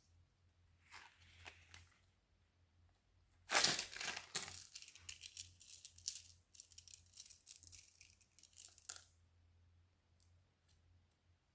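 Close, crinkly crackling handling noise from slime making, starting about three and a half seconds in and lasting about five seconds, loudest at its start, after a few faint taps.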